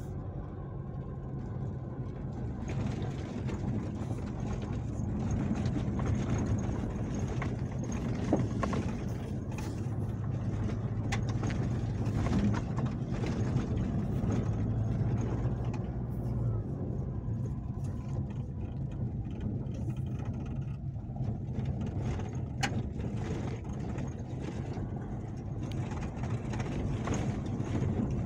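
Nissan Navara Calibre-X pickup's turbodiesel engine running steadily at low speed, heard from inside the cab, with tyres crunching over a rough gravel road and scattered clicks and knocks from stones under the wheels.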